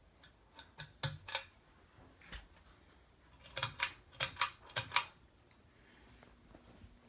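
A series of sharp clicks: two about a second in, a duller knock, then a quick run of about six clicks a little past the middle.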